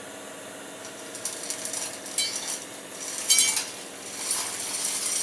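Dry pasta tipped into a cooking pot, rattling and clattering in a series of bursts, the loudest about two and three seconds in.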